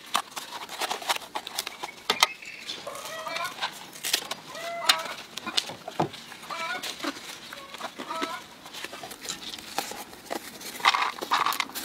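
Dry, soaked bamboo leaves crackling and rustling as hands fold them into cones and fill them with rice. A run of short, wavering animal calls sounds in the background from about three seconds in to about eight seconds in.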